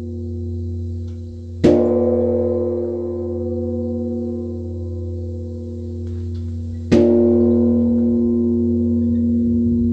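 Korean Buddhist temple bronze bell (beomjong) struck twice with a wooden log, about five seconds apart, each strike followed by a long, slowly fading ring over a deep hum that carries on between strikes.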